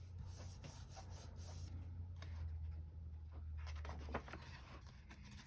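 Soft scratchy rubbing and light paper handling as stickers are placed and pressed down onto a planner page, in short repeated strokes. A low steady hum underneath stops about four seconds in.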